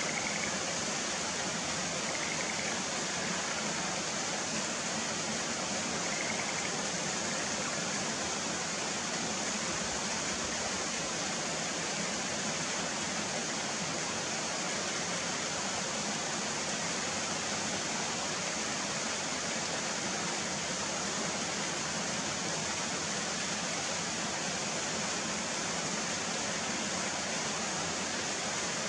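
Running water rushing steadily and evenly, with no breaks.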